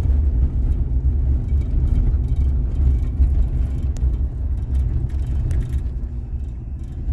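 Car driving slowly, a steady low rumble of engine and road noise heard from inside the cabin.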